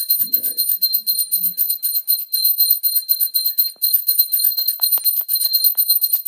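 Small puja hand bell rung rapidly and continuously, a fast, even rattle of strokes over a steady high ring.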